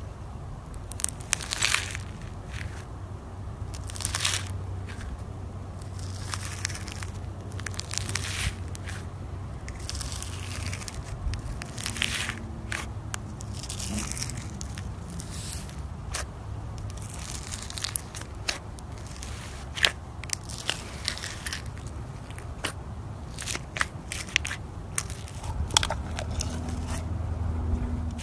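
Floam slime, slime packed with tiny foam beads, being squeezed and pressed by hand: the beads give irregular crunchy crackles and sharp pops, with some longer crackling stretches.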